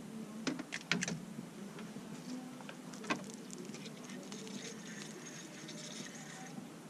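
Fishing rod and reel being handled on a boat: a few sharp clicks and knocks in the first second and another about three seconds in, then a light rapid ticking, over a faint steady low hum.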